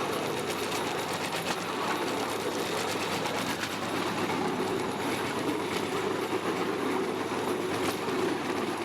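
Bamboo train (norry) riding the rails: a steady clattering and rattling of the bamboo platform and steel wheels on the track, with many small clicks.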